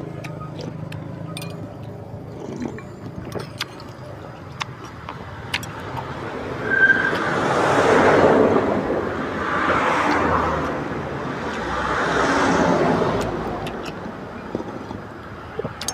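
Road traffic: three vehicles pass one after another, each one growing louder and then fading, over a low steady hum. Small clicks and knocks come and go throughout.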